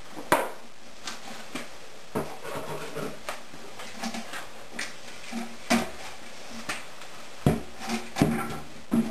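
Irregular knocks and clatter of wooden pieces and tools being handled on a workbench, with a few sharper knocks about half a second in and again in the last few seconds.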